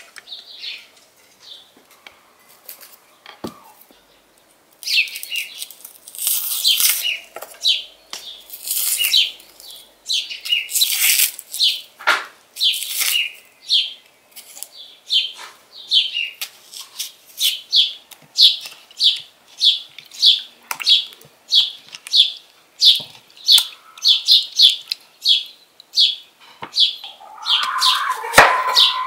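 A bird chirps over and over, about two short chirps a second, while a knife peels a dry onion: crackly rustles of onion skin. Near the end the blade cuts through the onion with a crunch and knocks on the wooden board.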